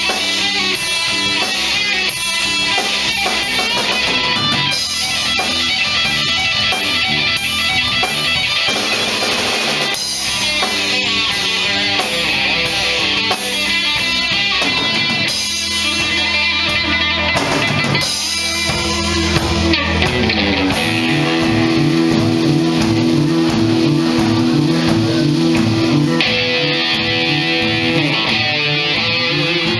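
Live guitar-led band music: guitars plucked and strummed in an instrumental passage, with a repeating riff of held notes in the latter part.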